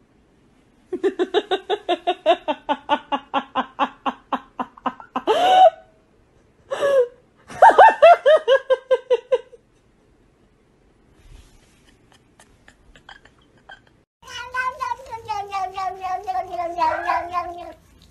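Domestic cats meowing. A fast, steady run of short pulsing calls, about eight a second, lasts about four seconds. A few separate meows follow, and near the end comes one long wavering meow that slowly falls in pitch.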